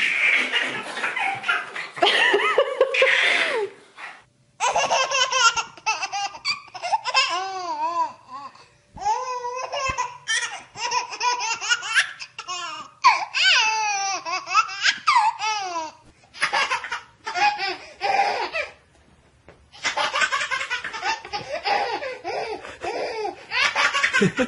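Babies laughing hard in long runs of giggles and belly laughs, broken by short pauses about four seconds in and again near nineteen seconds.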